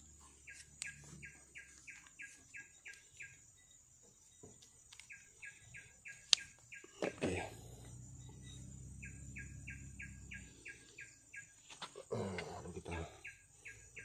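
A bird calling in bouts of short, evenly repeated chirps, about four a second, four bouts in all, over a steady high insect note. A single sharp click about six seconds in, and light handling noise of metal parts.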